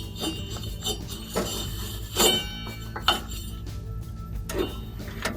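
About five metallic clinks and knocks, some ringing briefly, from the mower's metal pulleys, guards and tools being handled while the drive belt is worked around them, over a steady low hum.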